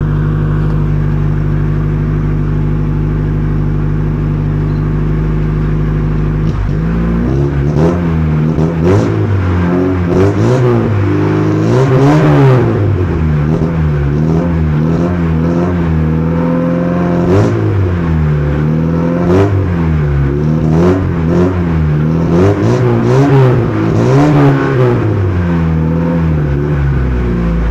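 A Mk1 car's 1.3-litre engine idling steadily for about six seconds, then revved again and again in short blips, the pitch rising and falling with each.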